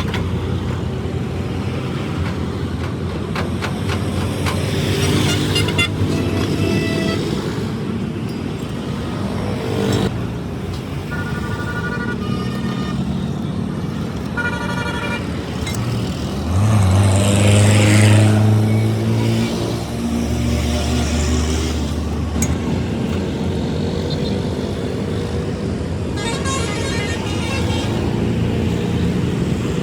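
Road traffic: motor vehicle engines running steadily, with horns tooting in short blasts several times. A heavy engine grows louder for a few seconds about halfway through.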